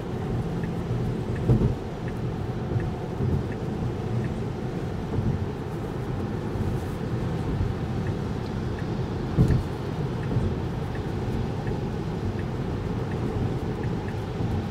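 Steady road and tyre noise of a Tesla Model 3 on a rain-soaked highway, heard inside the cabin as a low rumble with water spray and two brief thumps, one early and one about two-thirds through. Faint regular ticking of the turn signal runs under it.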